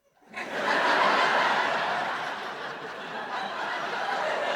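Sitcom studio audience laughing, swelling in about half a second in, loudest around a second in, then carrying on slightly lower.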